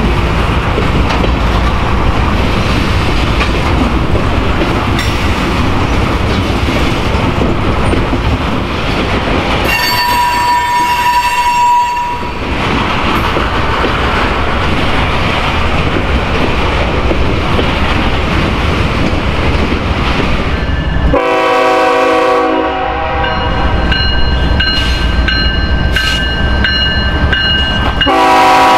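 Freight train rolling past, the wheels rumbling and clattering over the rails, with a brief high steady squeal about ten seconds in. In the last several seconds a diesel locomotive's air horn blows a steady chord, loudest at the end.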